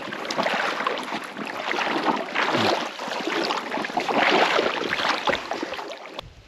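Legs wading through a shallow, rocky creek, the water swishing and splashing with each stride in surges every second or two; it stops abruptly near the end.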